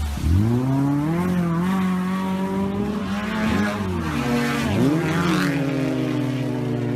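Off-road race vehicle's engine revving hard under full throttle. Its pitch sweeps sharply up in the first second and holds high, then drops and climbs again twice around the middle before running steady.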